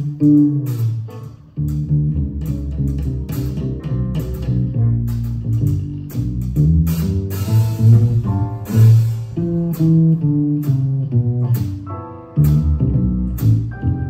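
Jazz trio of upright piano, plucked double bass and drum kit playing; the plucked bass notes stand out in the low end, with piano chords and regular cymbal strokes above.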